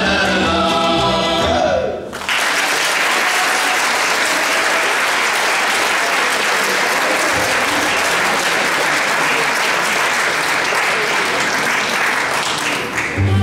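A men's folk vocal group with band ends its song about two seconds in. Audience applause follows at once and runs steadily, thinning near the end.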